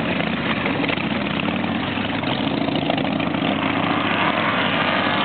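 Vehicle engine idling at a steady pitch.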